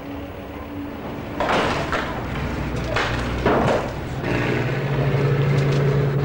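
A heavy engine drones steadily from about four seconds in. Before it come two loud, noisy crashing rushes, about a second and a half and three seconds in.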